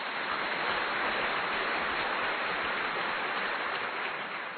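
A steady, even rushing noise, like rain or falling water, that fades out near the end.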